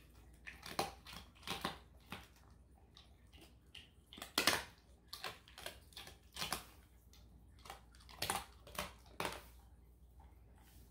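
A German shepherd chewing a dried kangaroo bone: irregular crunches and cracks as the bone breaks between its back teeth. The loudest crunch comes about four and a half seconds in.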